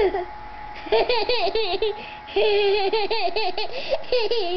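Young children laughing in high-pitched, quick rippling bouts: a short burst about a second in, then a longer run of laughter from about two seconds in.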